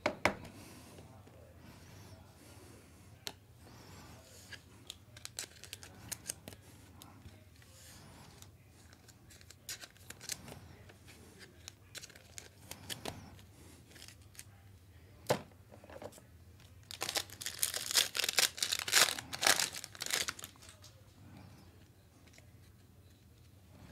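Trading card pack wrapper being handled and torn open, with scattered small clicks and rustles. About seventeen seconds in comes a dense run of tearing and crinkling lasting some three seconds, the loudest part.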